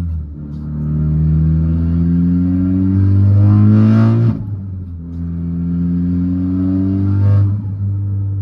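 Golf R's turbocharged four-cylinder, tuned with a large GT2260S turbo and a straight single-exit exhaust, pulling hard through the gears: the engine note climbs steadily, drops at an upshift about four seconds in with a brief rush of turbo air, climbs again and shifts once more near the end, then settles to a steady drone.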